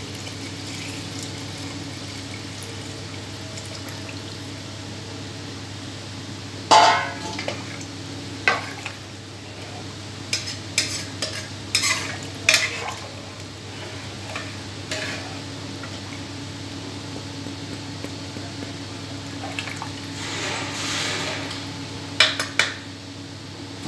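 Water being poured into a pressure cooker of fried biryani rice, then the rice and water stirred with a metal ladle that scrapes and clinks against the pot's metal side many times, the sharpest knock about seven seconds in.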